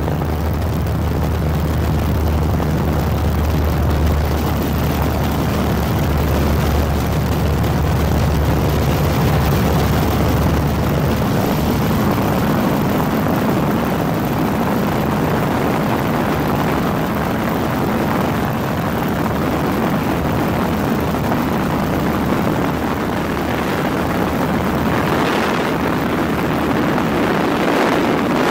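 Steady engine and airflow noise heard from inside a low-flying aircraft. A deep hum under it drops away about eleven seconds in.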